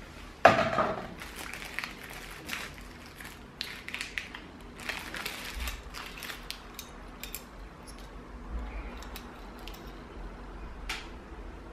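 Clear plastic bags of door-kit hardware crinkling and rustling as they are handled, with the small metal screws and plastic clips inside shifting and clicking. The loudest moment is a sharp rustle about half a second in; after it come irregular short crackles.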